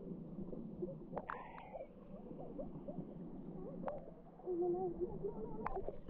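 Muffled water movement around a camera at and under the waterline of a stream: a steady dull sloshing, with a few sharp knocks and a brief wavering tone about three-quarters of the way through.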